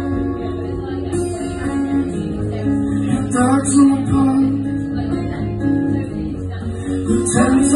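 Acoustic guitar played live, with ringing chords that change about every second.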